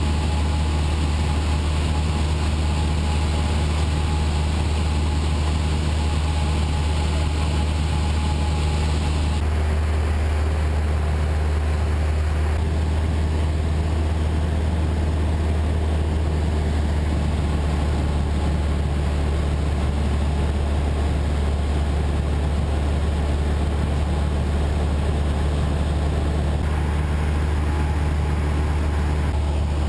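Cabin drone of a single-engine light aircraft's engine and propeller in steady flight: a deep constant hum with a hiss above it, the hiss changing a little in tone a few times.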